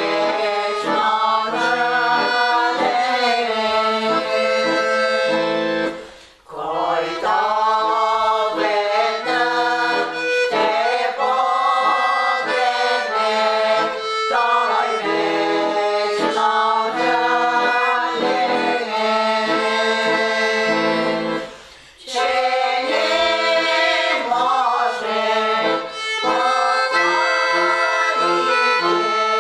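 Background music: a melody over held chords, breaking off briefly about six seconds in and again a little after twenty seconds.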